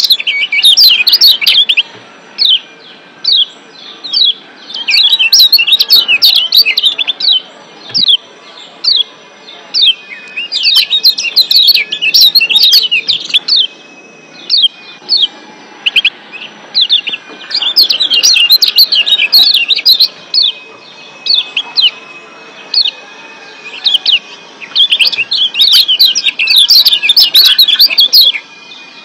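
Lombok yellow white-eye (kecial kuning) giving its sharp "ciak" chirps: rapid runs of high, quickly falling notes lasting a second or two, with scattered single notes between the runs. It is a wild-caught bird's call, used as a lure recording to make caged white-eyes sing.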